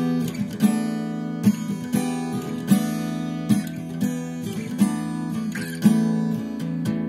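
Instrumental intro of a song: an acoustic guitar strumming chords, with a sharp accented strum roughly once a second.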